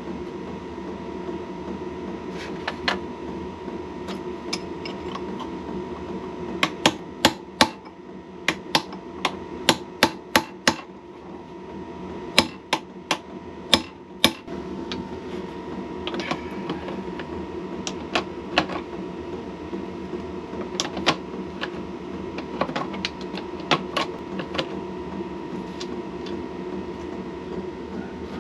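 Hammer blows on metal, driving a tool against a seized, rounded-off nut on a Triumph T90 motorcycle engine. The blows come in runs of sharp strikes about two a second, with lighter taps scattered between them. A steady hum runs underneath.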